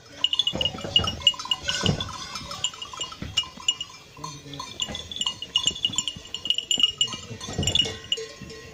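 Goats bleating amid the quick clinking of small livestock bells, with a few sharp knocks.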